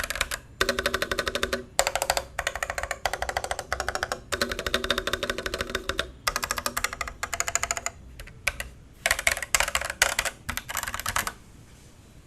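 Typing on an Ajazz AKC087 mechanical keyboard with AS 101 Yellow switches: fast runs of key clacks in bursts with brief pauses. The typing stops near the end.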